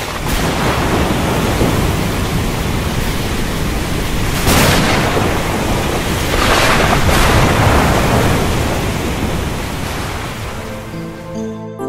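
Thunderstorm: a steady hiss of heavy rain with thunder cracks, the loudest about four and a half seconds in and again around six to seven seconds in. It cuts off suddenly just before the end.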